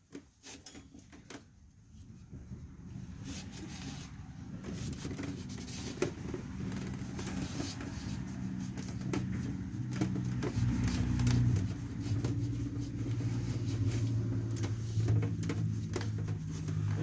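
A motor vehicle's engine running, a low hum that builds over the first few seconds and then holds steady, with scattered light clicks and taps.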